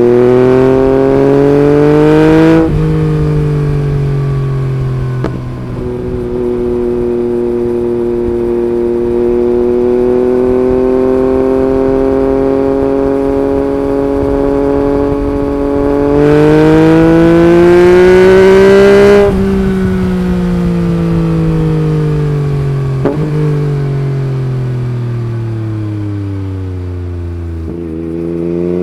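Yamaha MT-09's three-cylinder engine through an Akrapovic Racing Line carbon exhaust, ridden on the road: revs climb for the first couple of seconds, then ease off into a steady cruise. About sixteen seconds in it pulls up again for a few seconds before the throttle closes and the revs fall away slowly.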